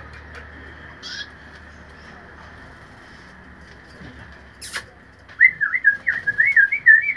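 A loud wavering whistle near the end, gliding up and down about five times over two seconds, after a single sharp click.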